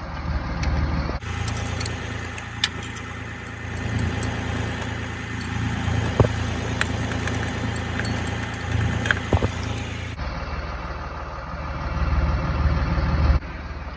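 Truck engine idling steadily, with a few sharp metallic clicks from a wrench winding out the caging (release) bolt of an air-brake spring chamber to free a locked-up brake.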